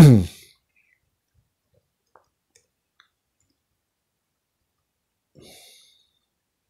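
Near silence with a few faint, isolated clicks a couple of seconds in, and a soft brief rustle near the end.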